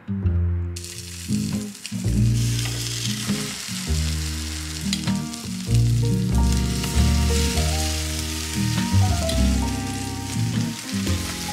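Egg-soaked slices of bread frying in a nonstick pan, a steady sizzle that comes in about a second in and grows fuller a second or so later, under background music with a low bass line.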